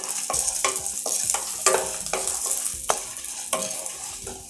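Wooden spatula stirring and scraping coriander seeds, toor dal, peppercorns, dry red chillies and garlic dry-roasting in a little oil in a non-stick kadai on medium flame. The seeds rattle and sizzle steadily, with a scraping stroke about every two-thirds of a second.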